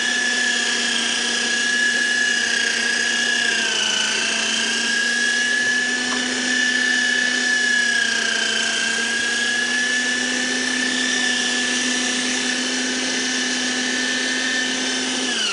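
Electric meat grinder's motor running with a loud, steady whine while grinding fresh coriander pushed down with the plunger. Its pitch sags slightly twice.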